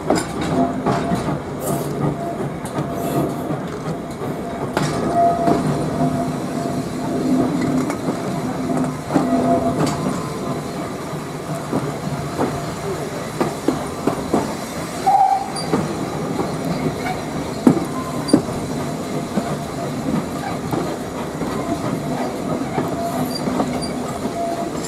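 Steam-hauled auto coaches on the move, heard from an open carriage window: wheels run over the rail joints with a clickety-clack and a squeal that comes and goes. The train is pulled by GWR 6400 Class pannier tank no 6412.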